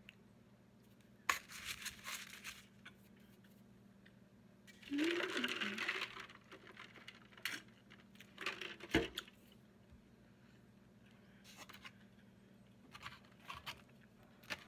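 Close-miked eating sounds: chewing on cornbread with small wet clicks, a longer sip from a styrofoam cup, and one sharp knock about nine seconds in as something is set down on the table. A faint steady hum sits underneath.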